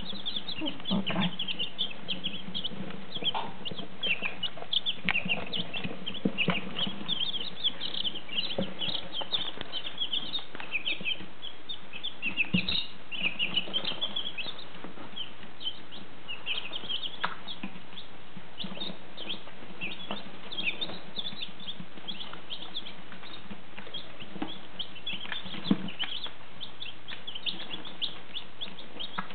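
A brood of day-old chicks peeping all the time, many short high chirps overlapping, busiest in the first half. A few sharp knocks stand out, the loudest about a third of the way in.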